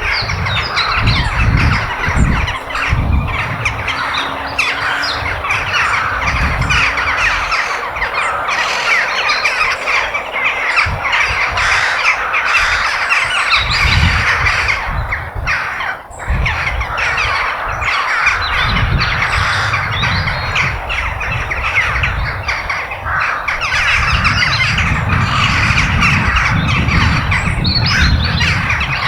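A large flock of crows calling at once, a dense, unbroken chorus of overlapping caws and squawks. A low rumble comes and goes underneath.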